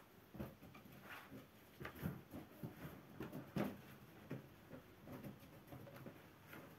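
Soft, irregular thuds and rustles of bare feet stepping on carpet and nudging inflated latex balloons, with no balloon popping; the loudest knock comes about halfway through.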